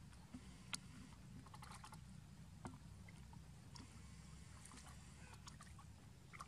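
Faint, scattered little splashes and clicks of macaques paddling as they swim, over a low steady hum.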